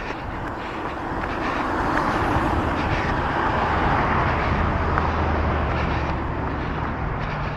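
A motor vehicle driving past on the road, its tyre and engine noise swelling for a few seconds with a low hum at its loudest, then easing off near the end. Faint footfalls of a runner tick through it.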